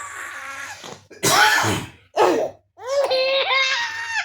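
A woman sneezes loudly about a second in, then gives a second, shorter burst. A small child then laughs in a high voice.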